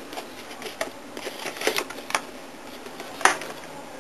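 Cardboard boxes of drinking glasses being handled and set down on a table: a run of light clicks and taps, with one sharper knock a little after three seconds in.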